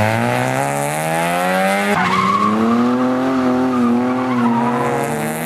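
Rally car engine revving hard, the pitch climbing, with a sharp break about two seconds in as it shifts, then revs rising and falling as the car slides through a turn with tyres squealing.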